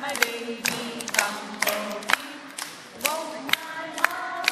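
Women and young children singing a song together, clapping their hands in time at about two claps a second.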